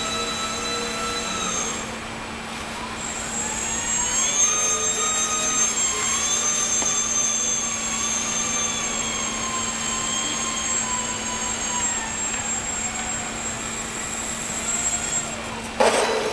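Electric motor and propeller of an indoor F3P aerobatic model plane whining, its pitch rising and falling with the throttle. The whine stops near the end as the plane lands, and clapping starts.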